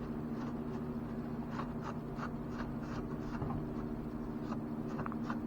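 Quick, repeated wiping strokes, about two a second, as oil is wiped off a surface, over a steady low hum.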